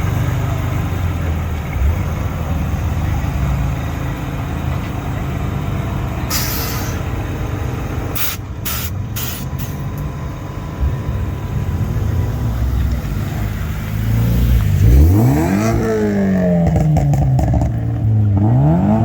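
Car engines running with a steady low rumble and a few short sharp noises partway through; near the end one engine revs up, drops back and revs up again.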